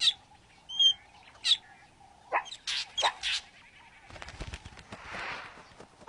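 Fork-tailed drongo giving a run of sharp, loud alarm calls: single calls about a second apart, then a quick burst of three or four. This is the drongo's false alarm, sounded with no predator there. In the last two seconds a softer rustling hiss takes over.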